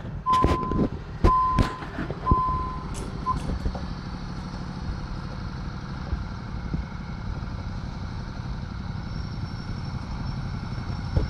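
Level-crossing warning signal beeping a clear electronic tone about once a second, stopping about three seconds in, over a steady low idling engine rumble that runs on after the beeps end.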